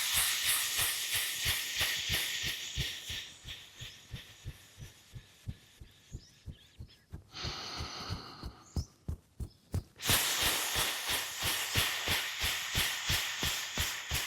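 Long exhaled "sssss" hiss, the Lung healing sound of qigong, fading away over about seven seconds, then a short breath in and a second long hiss starting about ten seconds in. Underneath, steady low thumps about three a second from heels dropping onto the floor while shaking the body.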